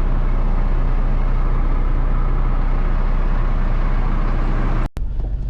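Combine harvester running steadily with a constant low drone. About five seconds in it breaks off for a moment and a rougher, less even engine sound takes over.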